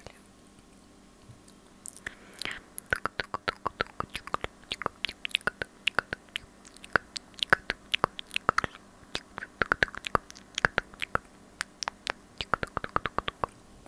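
Close-miked ASMR mouth sounds: a rapid, irregular run of wet lip and tongue clicks and smacks right on a small clip-on microphone, starting about two seconds in.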